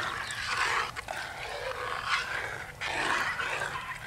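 A spoon stirring thick chicken broth in a cast-iron Dutch oven, scraping and sloshing in uneven swells, with a couple of light knocks against the pot.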